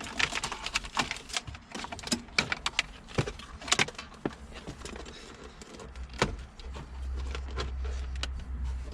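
Irregular clicks, crackles and rustling as a taped car wiring loom and plastic dashboard parts are pulled out and handled. A low steady hum comes in about six seconds in.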